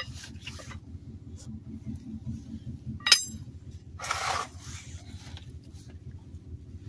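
Rummaging through gear in a vehicle storage compartment: one sharp metallic clink about three seconds in, then a brief rustle of a rug or mat being shifted, over a steady low hum.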